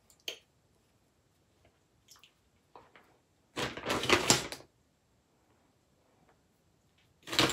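A clear plastic makeup pouch being handled and rustled, with one loud crinkling rustle lasting about a second near the middle and a shorter one near the end. A few small clicks come before it, as the lip gloss is put away.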